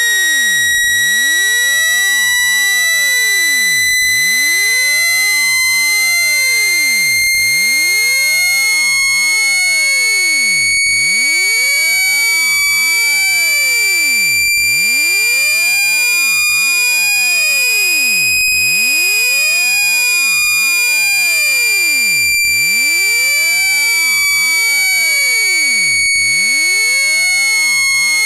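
Synthetic speaker-cleaning tone: a single loud, steady, high-pitched electronic tone that slowly rises in pitch and then eases back down about two-thirds of the way through.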